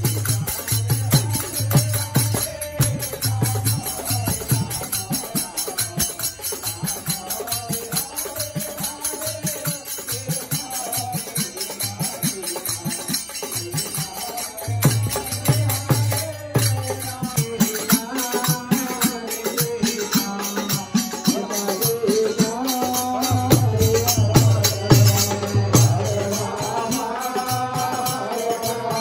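Indian devotional folk music: small brass hand cymbals (manjira) keep a fast, steady clashing beat over dholak drum strokes that come in stretches, with harmonium. A man's singing voice comes up in the second half.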